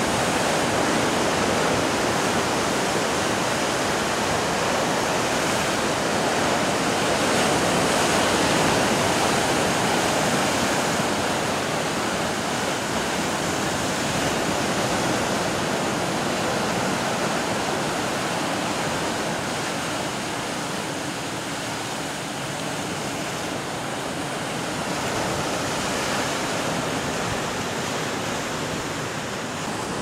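Caribbean Sea surf breaking along a rocky shore: a steady rushing wash of waves and foam, swelling slightly about a third of the way through.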